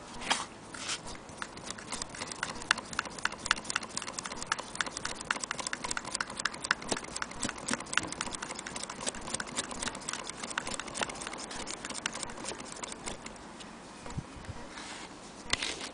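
Willcox & Gibbs chain-stitch sewing machine stitching denim, its mechanism clicking in an even rhythm of about four or five clicks a second, one per stitch, then stopping near the end.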